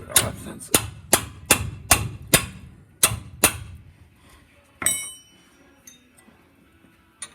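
A steel hammer strikes rusted brake caliper hardware eight times in quick succession, about two to three blows a second, to break loose a seized caliper. About halfway through comes a single metallic clang that keeps ringing for about a second.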